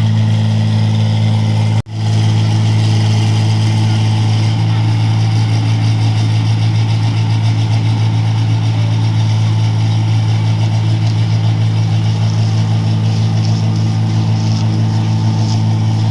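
New Holland combine harvester's engine running with a steady low drone. The sound cuts out for an instant about two seconds in.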